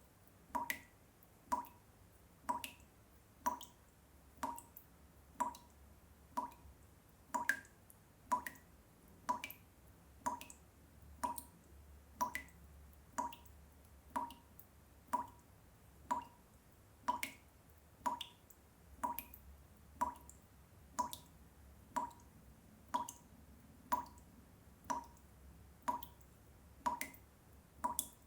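Water dripping from a washbasin tap: single drops land about once a second in a steady rhythm, each a short plink with a brief pitched ring.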